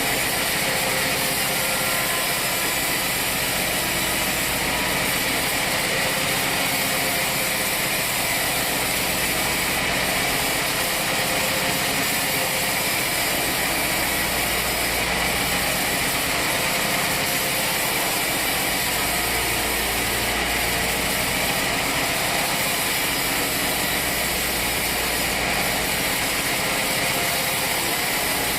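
Sawmill machinery running steadily, a constant engine-driven mechanical noise with no breaks.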